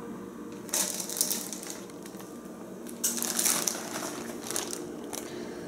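A plastic zip-top bag crinkling as crumbled Oreo cookies are pinched out of it, in two main bursts about a second in and about three seconds in, with a few lighter rustles after.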